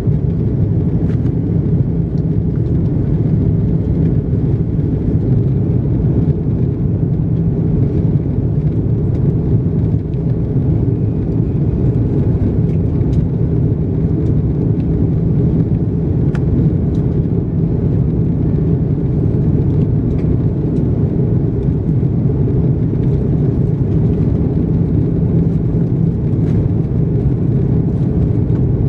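Steady low rumble of the engines and rushing air heard inside the cabin of an Airbus A330-200 airliner in flight, with a few faint clicks now and then.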